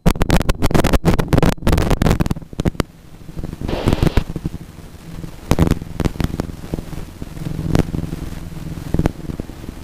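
Light aircraft's engine and propeller at full takeoff power during liftoff: a steady low drone, with a rapid run of crackling pops over the first few seconds.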